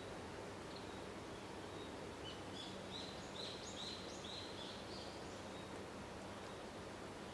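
A bird calling: a quick run of about eight short, high chirps that starts about two seconds in and stops near five seconds, over a steady faint background hiss.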